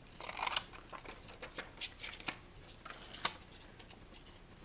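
Large scissors snipping through brown cardstock: several short, sharp cuts spread out, the loudest about three seconds in.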